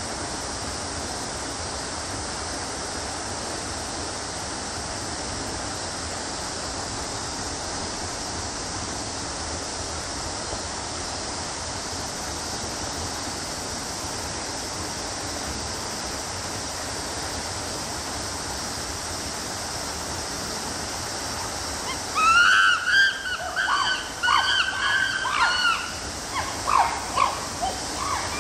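A steady rushing hiss like running water, then near the end a run of loud, short, high-pitched screams that bend up and down in pitch: chimpanzees screaming in a squabble.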